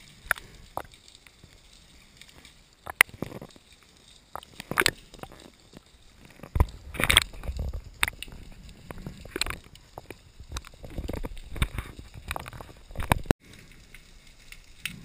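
Underwater noise heard through an action camera's waterproof housing: irregular sharp clicks and knocks with surges of muffled water rushing as the diver moves. The sound cuts out briefly near the end.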